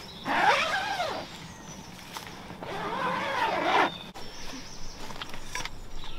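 Zip on the door of a pop-up camouflage hide being pulled twice, each pull a rasp of about a second that rises and falls in pitch, with small rustles and clicks of handling between and after.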